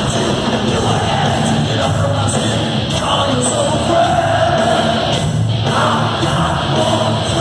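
Live heavy metal band playing loud, with a vocalist singing over electric guitars and drums.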